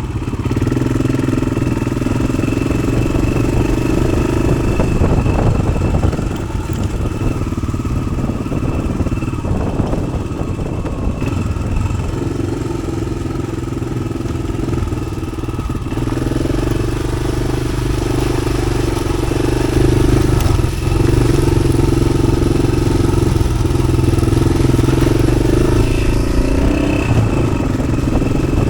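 Yamaha XT600's single-cylinder four-stroke engine running while riding off-road, its note rising and falling with the throttle and easing off briefly a few times.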